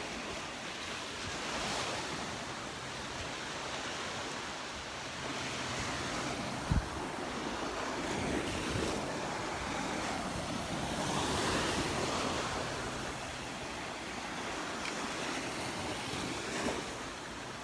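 Gulf surf washing onto the beach, the noise of the waves swelling and easing every few seconds, with some wind on the microphone. A single short low thump comes about two-thirds of the way through.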